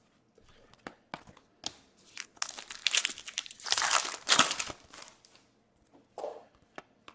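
Foil wrapper of a pack of hockey trading cards crinkling and tearing open, in dense bursts through the middle, after a few light ticks of handling.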